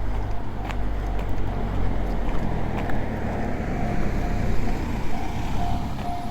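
Japanese railway level-crossing alarm bell ringing about twice a second over the deep rumble of a train running past on the tracks, with a few sharp clacks from the wheels.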